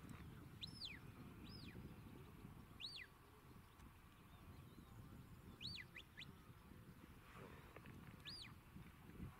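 Faint sheepdog whistle commands from the handler: short notes that each sweep sharply up and back down, coming as a pair, a single, another pair and a single, over a low wind rumble.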